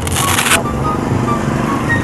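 Hook-and-loop strap of a blood pressure arm cuff rasping for about half a second at the start, as the cuff is worked on the arm. Background music with a steady low tone and short high notes follows.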